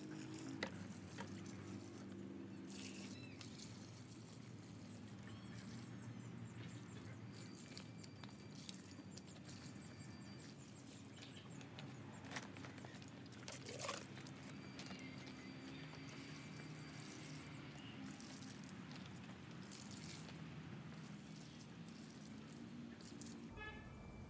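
Water poured from a bucket onto soil, splashing faintly and trickling along a planting trench.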